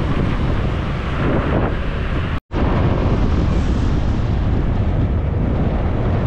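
Wind buffeting the microphone on a moving motor scooter, with the scooter's engine running underneath. The sound drops out for an instant about two and a half seconds in.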